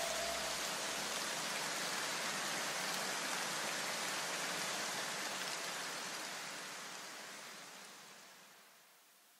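A steady, even hiss of noise that fades away to silence about eight seconds in.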